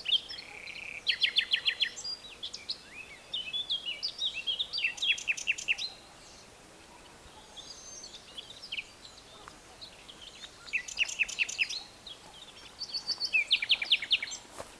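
Songbirds singing: four bursts of quick, high repeated chirps and short trills, with a quieter stretch in the middle, over faint steady background noise.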